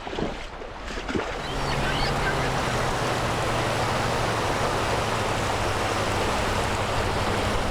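Strong wind rushing steadily as a windstorm sweeps in. It builds about a second and a half in, with a low steady hum underneath.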